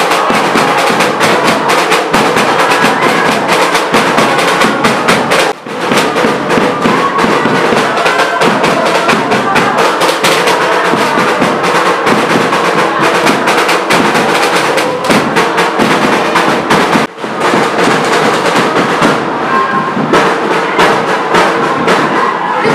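A crowd of students cheering and chanting over fast, loud drumming and banging on percussion, with two brief dips in the sound about six and seventeen seconds in.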